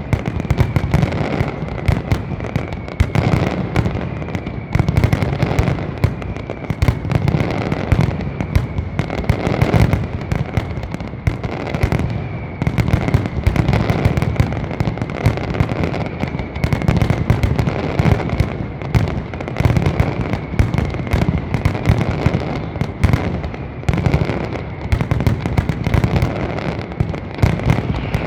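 Aerial fireworks display: a dense, continuous barrage of bangs and crackles, many per second, with no let-up.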